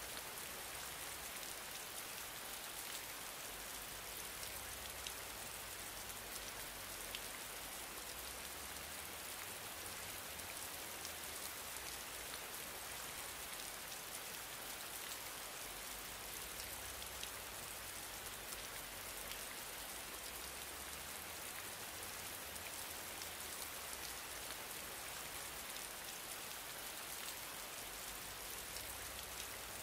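Steady faint hiss, strongest in the high end, with scattered tiny ticks and no change throughout.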